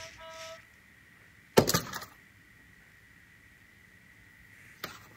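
A baby's electronic plastic rattle toy sounds a couple of short electronic beeps, then a single sharp, loud knock of hard plastic on the windowsill about a second and a half in.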